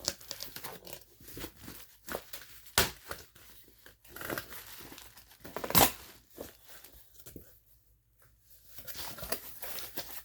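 Shipping packaging being cut and torn open with a dull kitchen knife: irregular crinkling and ripping, with two louder sharp rips about three and six seconds in.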